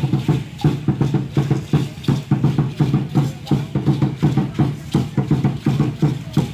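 Danza azteca drumming: a tall huehuetl drum beaten in a fast, steady beat, with the dancers' seed-pod ankle rattles clattering over it.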